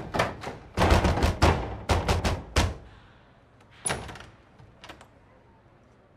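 A door handle jerked and rattled over and over, a quick run of sharp clattering strokes that stops after about three seconds. About a second later comes a single sharp knock.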